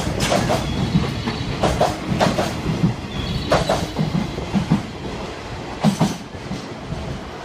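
Freight train container wagons rolling past at speed, their wheels clicking over rail joints in uneven clusters, with a faint wheel squeal about halfway through. The clatter eases off as the last wagon passes and moves away.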